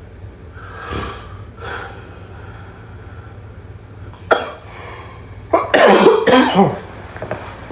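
A snoring sleeper's noisy breaths, two soft ones early on, then a sharp burst about four seconds in and a loud, rough cough lasting about a second near the end.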